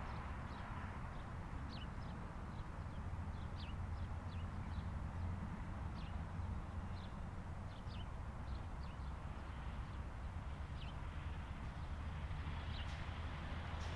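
Outdoor ambience: a steady low rumble with many short, high chirps from small birds scattered throughout.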